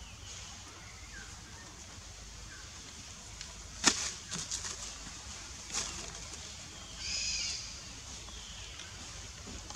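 Branches snap and knock as monkeys climb and swing on thin saplings: one sharp crack about four seconds in, then a few lighter knocks and rustles. A short high-pitched call sounds about seven seconds in.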